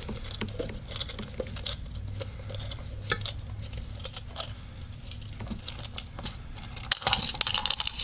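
Scattered small clicks and light rattling from the plastic seal cap of an American Standard Champion 4 flush valve as its thumb screw is twisted loose by hand. A sharp click comes about seven seconds in, followed by denser clicking and rattling.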